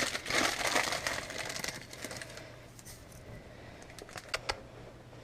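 Dry forage rustling and crackling as guinea pigs rummage and chew in it, busiest for the first two seconds, then fading to a few scattered clicks.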